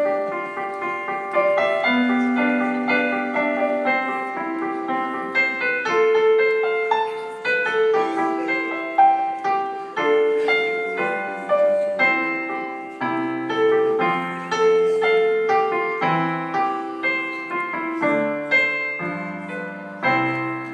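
Piano music playing a gentle, flowing melody of struck notes, dying away near the end.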